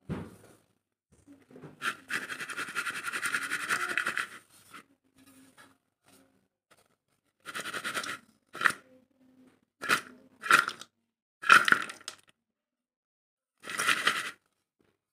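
Toasted clay pieces crunching and cracking: about two seconds of continuous crunching, then six short, sharp crunches spaced a second or two apart.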